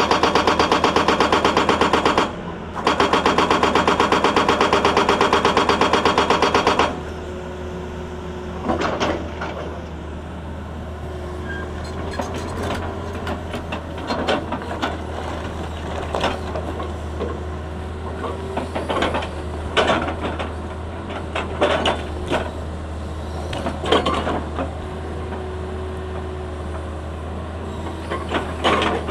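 Hydraulic rock breaker on a Tata Hitachi excavator hammering rapidly against rock, with a short break about two seconds in, then stopping about seven seconds in. After that the excavator's diesel engine runs steadily, with a faint whine coming and going and scattered clanks and knocks of steel and rock.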